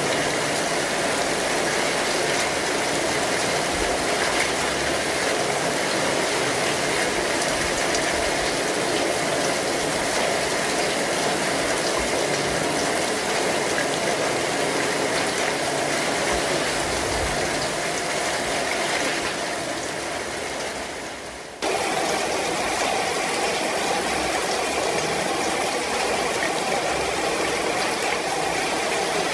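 Kinetic sand crunching and crackling steadily as it is cut with metal cookie cutters and squeezed by hand. The sound fades away for a moment about two-thirds of the way through, then cuts sharply back in.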